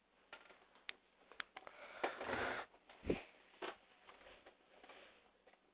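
Faint room sounds at a desk microphone: scattered small clicks and a short breathy noise about two seconds in, with a soft thud a moment later.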